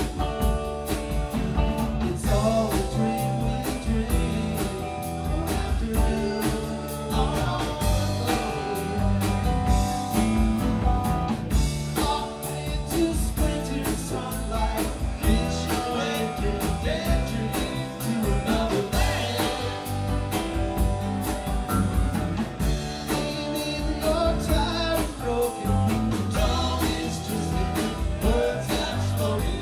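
Live rock band playing a song: electric guitars, drum kit and keyboard with a steady beat, and a man singing lead over it.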